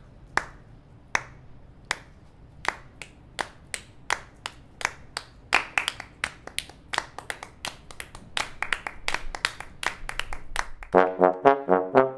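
High heels clicking on a concrete floor, sharp single taps at first, coming faster and faster into a quick dancing rhythm. About eleven seconds in, brass music with a trombone-like sound comes in.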